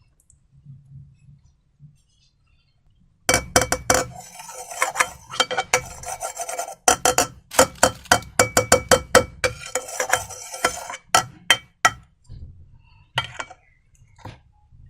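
Hard containers and utensils for slime making clattering, clinking and scraping in quick succession, with a faint ringing in some of the clinks. It starts about three seconds in, runs densely for most of the rest and thins to a few scattered clicks near the end.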